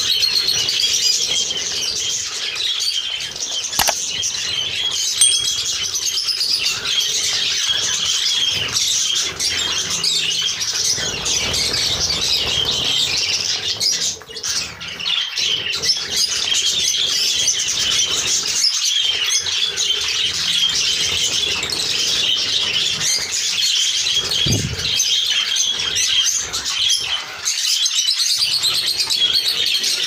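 A flock of budgerigars chattering continuously with rapid high chirps and warbles, with wings flapping as birds fly on and off a hand-held seed tray.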